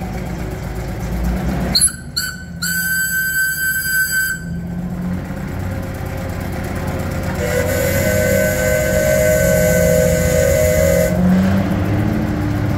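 An engine idling steadily under two whistle blasts. About two seconds in, a high whistle gives two short toots and then a held note of about two seconds. From about seven seconds in, a lower whistle or horn tone is held steady for some three and a half seconds, the loudest sound here.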